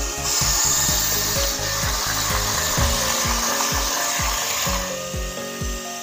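Wall-climbing RC toy car's suction fan whirring steadily, fading out about three-quarters of the way through, over background music with a steady beat.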